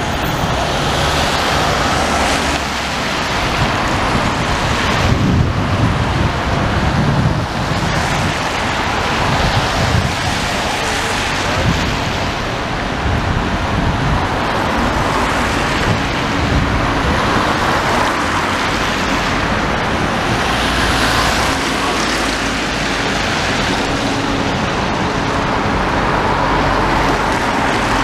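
Wind buffeting the microphone over steady street traffic noise, with vehicles swelling past now and then.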